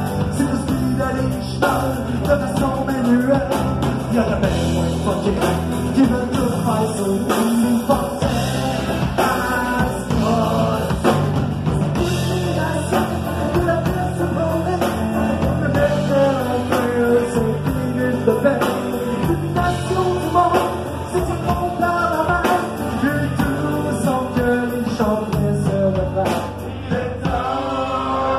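Rock band playing: a drum kit keeping a steady beat under bass, with a melody line weaving over it.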